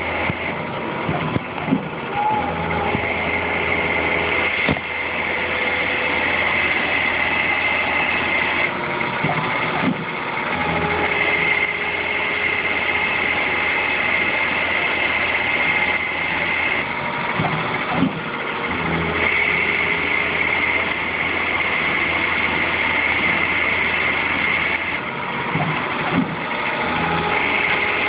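Tormach Duality Lathe spindle turning a part at 1000 RPM while the tool takes a 0.01 in cut at 5 inches per minute. A steady machine whine runs throughout; the high tone drops away and comes back several times as the cut changes, and a few short knocks are heard.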